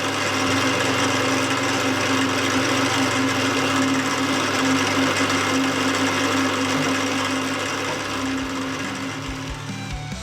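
Milling machine running steadily with a strong, even tone under a broad machining noise. The sound eases off a little near the end.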